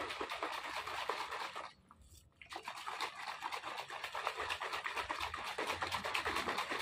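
Plastic protein shaker bottle holding whey powder and water shaken by hand, the liquid sloshing in quick strokes, with a short pause about two seconds in.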